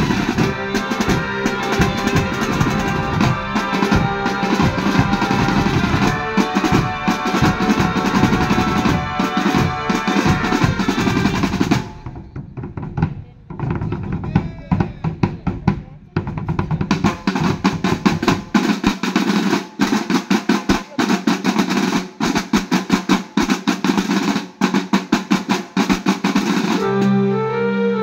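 Drum band playing snare drums and bass drums together. For the first half a sustained pitched melody plays over the drumming; after a short quieter break the drums play alone in a fast, regular beat, and near the end a keyboard-like melody comes in.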